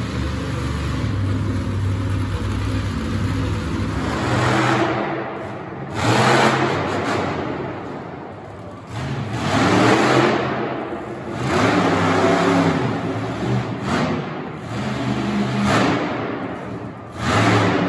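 Monster truck engine running with a steady low drone, then revving hard in a string of short surges from about four seconds in.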